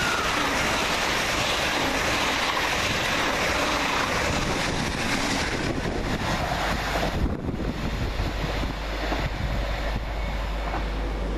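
Great Western Railway Class 800 intercity express train passing through a station at speed: a loud, steady rush of wheels on rail and air that fades as the train draws away, about seven seconds in.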